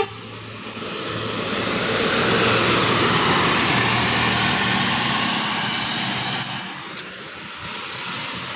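A brief sharp sound at the very start, then a road vehicle, most likely a bus, driving past: engine and tyre noise swells, peaks a few seconds in and fades away, dropping off sharply about six and a half seconds in.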